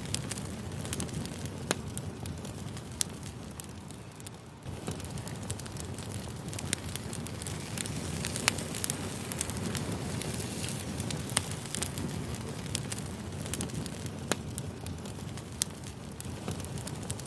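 Wood fire burning: logs crackling with irregular sharp pops over a steady low rush, dipping quieter for a moment and then coming back abruptly about five seconds in.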